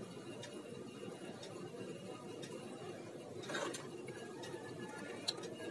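Steel spoon scooping thick rabri from a steel pan and ladling it over bread slices: a brief scrape about three and a half seconds in and a light click near the end, over low steady background noise with a faint tick about once a second.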